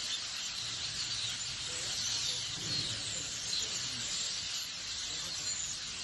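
Hundreds of starlings roosting together in a street tree, all calling at once in a dense, steady chorus of high chirps and squeaks.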